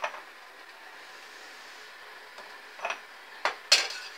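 Several sharp clinks and knocks, the loudest near the end, as a small ceramic espresso cup is handled and set down on the metal drip grate of an Arrarex Caravel lever espresso machine, over a faint steady hiss.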